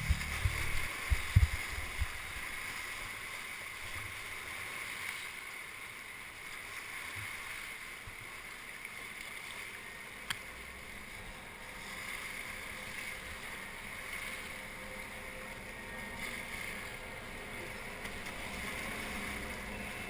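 River rapids rushing steadily around a whitewater kayak, with a few heavy splashes and thumps in the first two seconds as the boat punches through waves. A single sharp click about ten seconds in.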